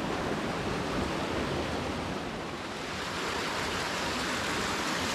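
A waterfall rushing: a steady, unbroken wash of falling water.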